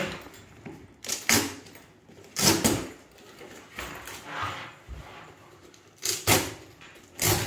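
Handling noise from a hard-shell backpack being unpacked: a handful of short rustling and scraping bursts as plastic packing and the fabric lining are pulled about.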